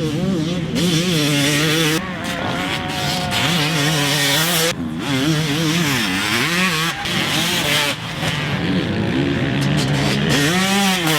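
2006 Kawasaki KX250 two-stroke single-cylinder engine revving up and down hard as the bike is ridden, in short stretches joined by abrupt cuts.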